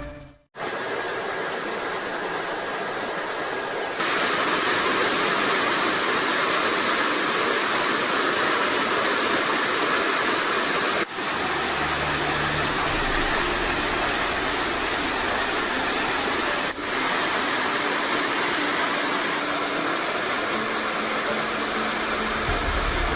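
Swollen, muddy canal water rushing fast in a strong current, a steady even rush broken by a few abrupt cuts, with a low rumble joining in partway through.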